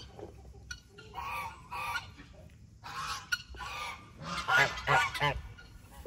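Domestic geese honking: a few spaced honks, then a quicker run of louder honks about four seconds in.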